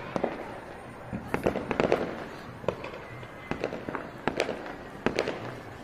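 Firecrackers going off all around: a string of irregular sharp bangs and pops, thickest between one and two seconds in, over a steady background din.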